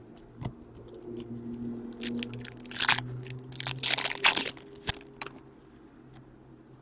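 Foil wrapper of a hockey card pack being torn open and crinkled, with the clicks of cards being handled. The loudest tearing comes in two spells around the middle.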